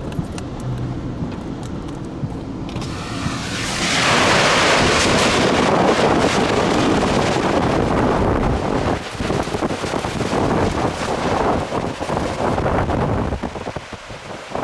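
Tornado wind buffeting the vehicle and the microphone: a low rumble for the first few seconds, then a loud rush of wind that comes in about four seconds in, holds for about ten seconds, and eases near the end.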